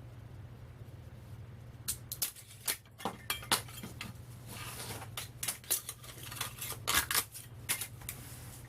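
Thin steel transformer core laminations clinking and scraping against each other as they are worked loose from the stacked iron core and set down: a dense run of sharp metallic clinks starting about two seconds in.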